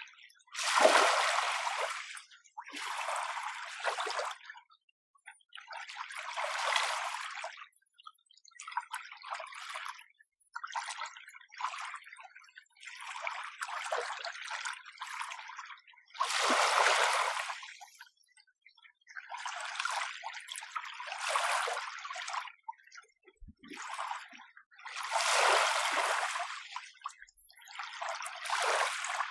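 Small, gentle sea waves washing in one after another, each a short hissing wash of a second or two with brief quiet between. There is no deep rumble of surf.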